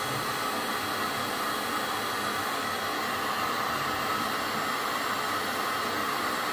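Black+Decker heat gun running, its motor-driven fan blowing a steady rush of hot air with a hum-like band in the middle of the hiss.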